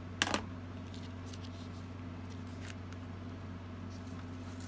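A couple of quick, sharp taps just after the start as cardstock and a crafting tool are set down on the tabletop, then a steady low hum with a few faint rustles of cardstock being handled.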